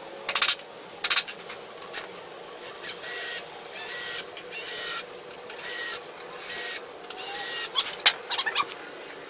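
A few sharp knocks on the wooden boards, then a cordless drill run in about six short bursts with a steady whine, pressed down into the stacked lumber. A quick clatter of knocks comes near the end.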